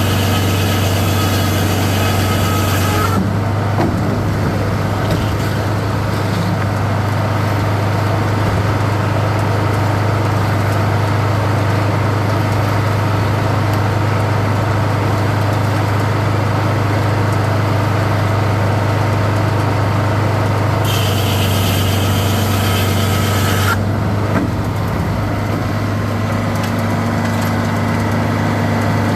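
Sawmill engine running steadily under a loud low hum, with a higher whine joining in for a few seconds at the start and again about two-thirds of the way through.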